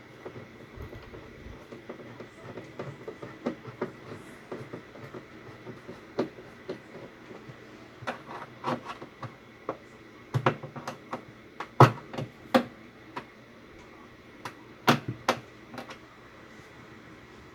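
Screws being fastened by hand into a refrigerator's plastic interior panel: irregular clicking and knocking of screwdriver, screws and panel, with several sharper knocks in the second half.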